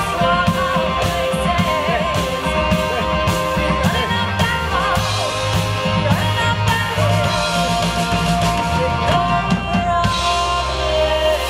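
Live band playing rock-pop: a woman singing over electric guitars, bass and a drum kit. Near the end the drums drop out and held notes carry on.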